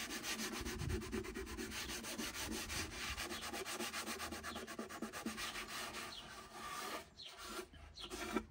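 Hand sanding of a 15-inch viola's bare wooden body: rapid, even back-and-forth rubbing strokes of sandpaper on wood. The strokes stop about seven seconds in, with one brief scrape near the end.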